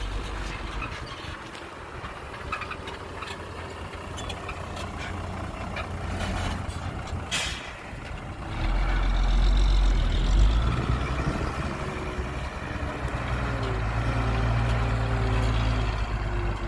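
Dump truck's diesel engine running, with a short sharp hiss about seven seconds in. The engine grows much louder and deeper about nine seconds in and stays so.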